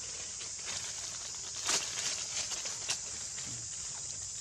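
Dry leaves crackling and rustling as a baby macaque squirms in a bed of leaf litter, a few sharp crackles in the middle, the loudest about two seconds in. Under it runs the steady high chirring of insects.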